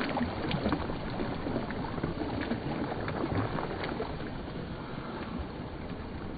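Steady wind and water noise at the shoreline, with wind buffeting the microphone, and a few faint ticks in the first second or so.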